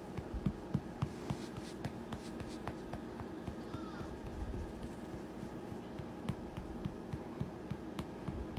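Domestic cat purring steadily while being stroked: a low, continuous throbbing, with faint scattered clicks and rustles from the hand on its fur.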